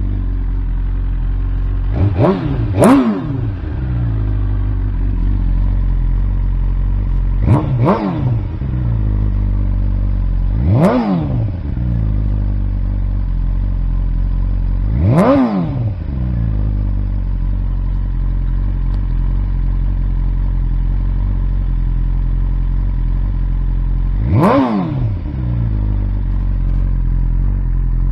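2021 BMW S1000RR inline-four idling through a titanium Akrapovic system with the stock BMW muffler, blipped on the throttle: a quick double rev about two seconds in, then four more single revs that each rise and fall straight back to idle.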